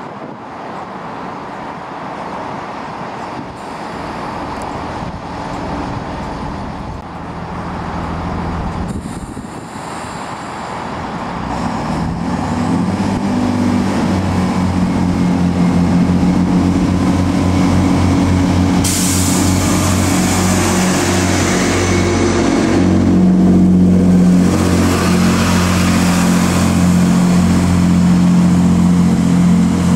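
Great Western Railway Class 165 diesel multiple unit drawing slowly into the platform. Its underfloor diesel engines build to a steady throbbing hum from about halfway in, getting louder as the train comes alongside. A burst of air hiss from the brakes starts about two-thirds through.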